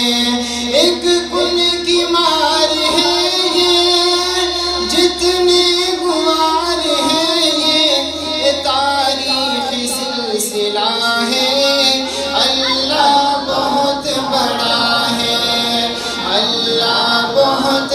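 A man singing an Urdu hamd, a devotional hymn in praise of God, into a microphone through a public-address system, with long held notes.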